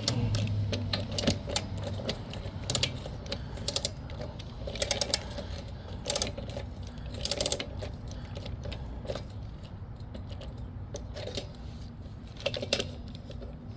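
Torque wrench ratchet clicking in short bursts of rapid clicks, several times over, while tightening a spark plug into a lawn mower engine.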